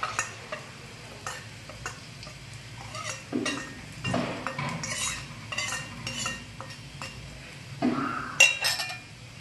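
Steel spoon scraping and tapping against a small steel bowl as spices are tipped out into a pan: a string of short scrapes and light clinks, with a sharper cluster of clinks about eight and a half seconds in.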